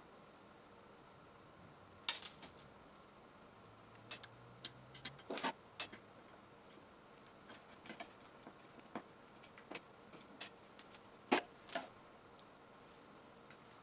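Scattered light clicks and taps of a screwdriver and small metal parts being handled on an opened stand mixer while its tilt lever assembly is screwed back in place. The taps are loudest about two seconds in and again near the end.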